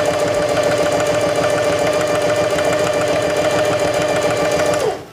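Singer Heavy Duty 4411 sewing machine sewing a straight-stitch seam at a steady speed, its motor whine holding an even pitch, then winding down and stopping near the end.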